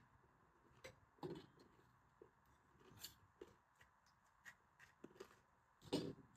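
Faint, scattered clicks and crackles of a spoon on stainless steel bowls and crisp puri shells being handled while pani puri is filled, the loudest near the end.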